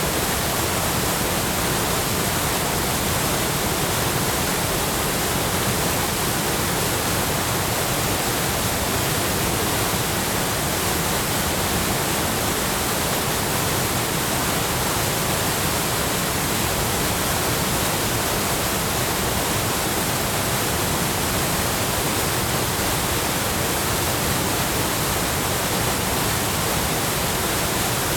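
Waterfall pouring steadily: the constant, dense rush of Chōshi Ōtaki's water crashing into its plunge pool.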